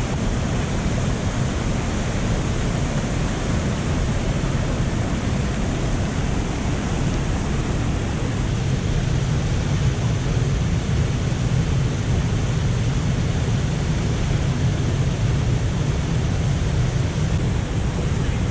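Waterfalls and rapids of the Jacaré Pepira river rushing steadily: a continuous deep noise of falling water, with no breaks.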